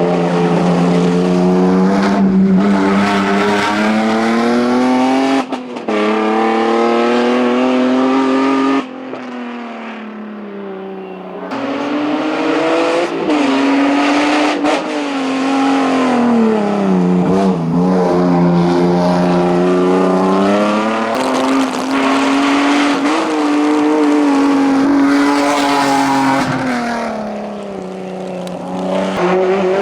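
Hillclimb race car engine at full throttle, its pitch climbing through the revs and dropping back at each gear change or lift, over and over. About nine seconds in it goes quieter and duller for a couple of seconds before the car accelerates hard again.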